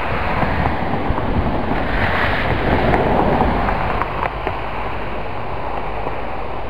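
Wind buffeting the camera microphone: a steady rushing noise with a low rumble, swelling a little about two to three seconds in.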